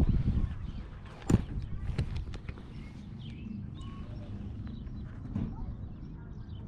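A few sharp knocks and thumps over a steady low wind rumble on the microphone, the loudest knock about a second and a half in. Faint bird chirps come now and then.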